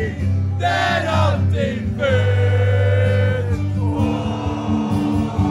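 Bar crowd singing along loudly with music through a PA, several voices close by singing over sustained low accompaniment.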